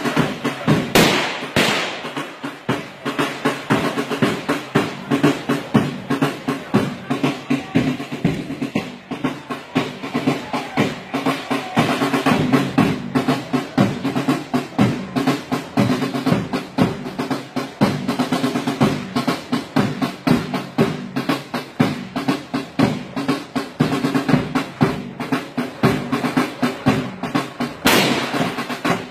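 Marching drums, snare and bass, beaten fast and without a break by marching football supporters, so the hits run together almost like a roll.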